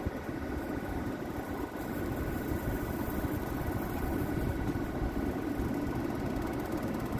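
Steady low machine hum with a faint steady whine above it, while a Belimo AFB24-SR spring-return damper actuator drives the economizer damper slowly open under a test command.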